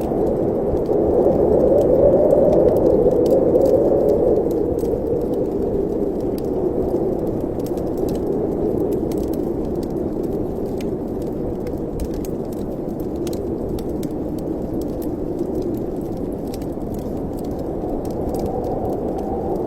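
Wind moaning in a fireplace chimney, a low hollow rush that swells in a gust a second or two in, then settles. Faint scattered small clicks and crackles sound throughout.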